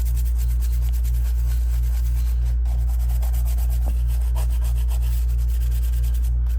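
A small brush scrubbing over freshly soldered joints on a Macintosh 512K analog board, a dry rubbing scratch. Under it runs a loud, steady electrical hum.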